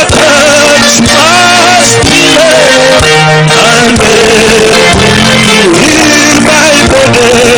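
Loud music with a singing voice over instrumental backing.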